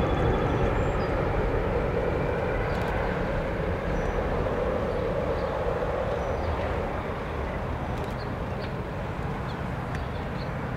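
Jet noise of a Boeing KC-135R Stratotanker's four CFM F108 turbofans as it climbs away, a steady rumble that slowly fades.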